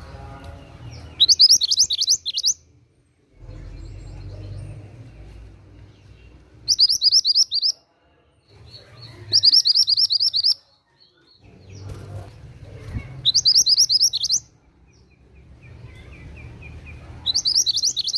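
Mantenan gunung songbird singing five short, loud phrases of rapid high notes, each about a second long and a few seconds apart, over a faint low background rumble.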